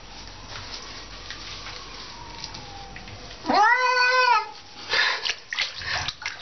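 Domestic cat giving one loud, drawn-out meow about three and a half seconds in, its pitch rising at the start and dropping at the end: a wet cat protesting while being bathed in a bathtub.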